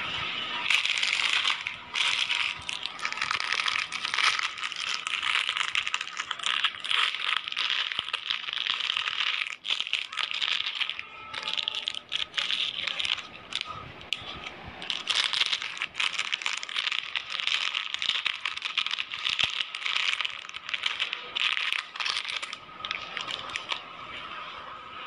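Plastic bubble-wrap packaging crinkling and rustling as it is handled, a dense run of rapid crackles with a couple of short lulls.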